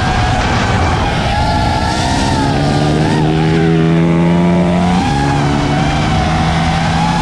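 Small motorbike engines running on a kart track. From about two seconds in, one engine holds steady revs, then drops in pitch about five seconds in, all over a wavering whine like the filming drone's motors.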